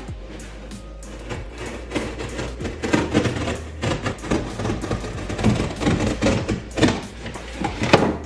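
Utility knife slicing through corrugated cardboard in repeated scraping strokes, with sharp knocks at the start and a louder one near the end.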